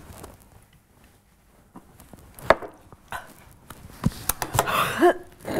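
Scattered knocks and clatter of objects being handled and set down on a tabletop, with a short noisy burst and a brief pitched vocal sound near the end.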